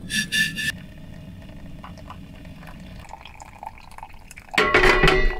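Boiling water poured from a stainless steel stovetop kettle into a pour-over coffee dripper. It opens with short high-pitched bursts in the first second and ends with a louder pitched burst near the end.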